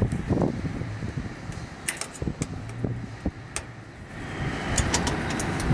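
An Allen key working the bolt of an aluminium solar-panel end clamp on its rail: scattered small metallic clicks and taps. About four seconds in, a steady background rush swells up.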